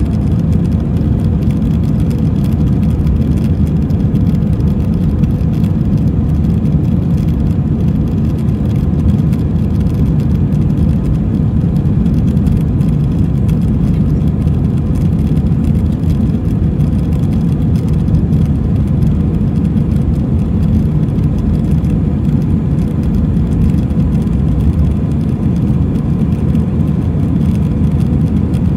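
Steady cabin noise of a jet airliner in flight, heard from inside the cabin: a low, even rumble of engines and rushing air, with a faint steady hum above it.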